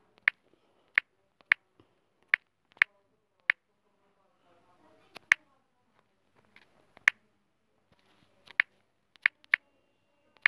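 Key-press clicks from a phone's on-screen keyboard as a message is typed slowly: one short, sharp click per key, about a dozen at uneven intervals.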